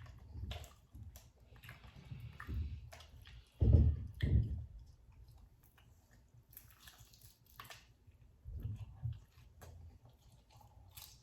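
A person chewing and biting crispy, greasy fried birria tacos, with wet mouth clicks and crackles throughout and two louder low thuds about four seconds in.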